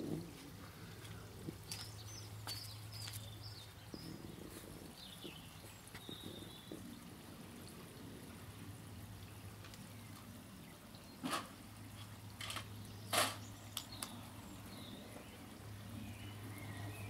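Quiet garden ambience: faint bird chirps over a steady low hum, with a few sharp clicks, the loudest about eleven and thirteen seconds in.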